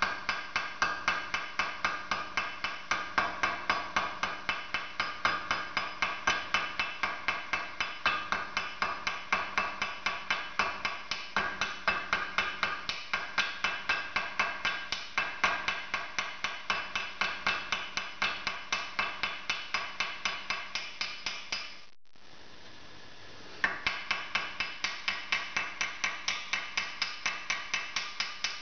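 Small hammer giving rapid light taps, about four to five a second, on a copper wire in a steel jig held in a vise, each tap with a short metallic ring: the wire end being peened into a conical copper rivet head. The tapping stops briefly a little over three-quarters of the way through, then starts again.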